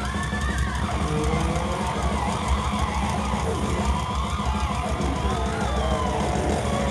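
Thrash metal band playing live, loud and continuous: distorted electric guitars over a pounding drum kit, heard from within the audience with a heavy, muddy low end.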